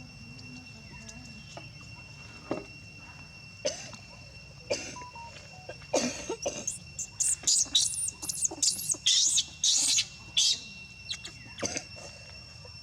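Baby monkey screaming: a run of loud, very high-pitched squeals, each rising and falling, starting about halfway through after a few short knocks.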